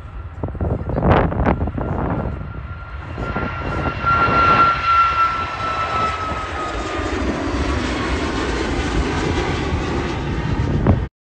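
An airliner's engines passing close by, with a steady whine that swells about four seconds in and then slowly drops in pitch as the aircraft goes past. Gusts of wind buffet the microphone at first, and the sound cuts off abruptly near the end.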